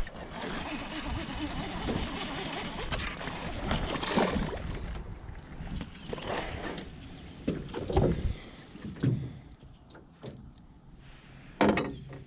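Splashing and knocks in and around a small boat as a hooked fish is brought in and landed, with several separate sharp strokes in the second half.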